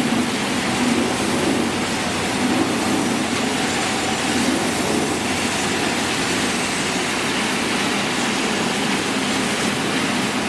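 Industrial crate washing machine running: a steady, loud wash of water spray over motor and conveyor noise.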